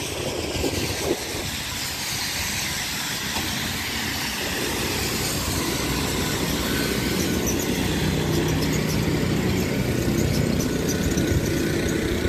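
Small snowblower engine running steadily over a constant background rush; its hum becomes more prominent in the second half.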